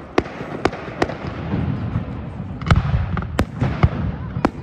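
Fireworks display heard from across a river: about seven sharp bangs of aerial shells bursting, over a low rolling rumble.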